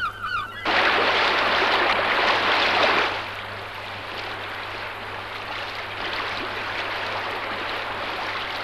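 Rushing white water of river rapids, a steady hiss-like rush. It is louder from just under a second in, then drops to a softer, even rush about three seconds in.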